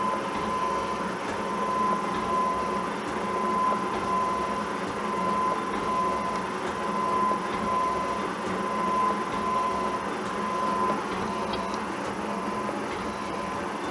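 Milling machine taking a surfacing cut across a steel block, about 27 thousandths deep to bring it down to thickness: a steady machining noise with a constant high whine that fades about three-quarters of the way through.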